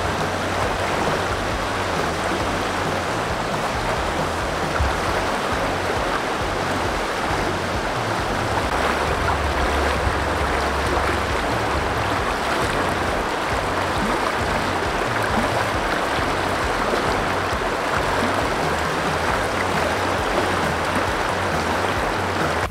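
Fast-flowing river rushing and churning around a wading angler's legs: a steady, loud rush of water.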